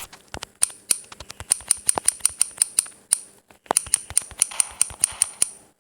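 A rapid series of sharp clicks, about four or five a second, each with a short high ping, pausing briefly about three and a half seconds in before starting again.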